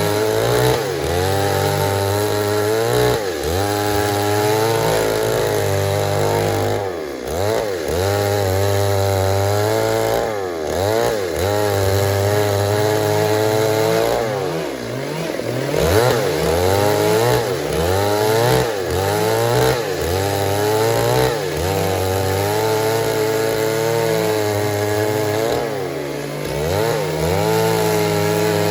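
Stihl MS 382 chainsaw running flat out while cutting wood. Its engine pitch sags under load and picks back up several times.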